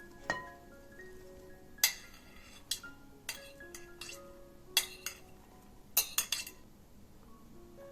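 Kitchen utensils clinking against dishes: about ten sharp separate knocks, with a quick run of four about six seconds in, over soft background music with a light plucked melody.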